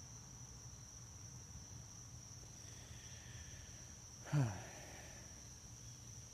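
Faint, steady high trill of crickets. About four seconds in, a man makes one brief low sound that falls in pitch.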